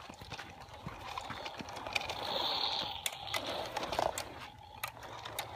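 A toy John Deere tractor with big rubber tyres pushed by hand across dry, gritty dirt: the wheels crunch and scrape over the ground, with scattered small clicks.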